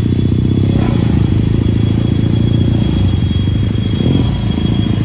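Motorcycle engine running steadily through a loud modified exhaust.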